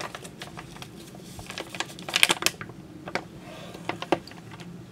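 Coffee bag crinkling and rustling as it is opened and handled: an irregular run of sharp crackles, loudest about two seconds in.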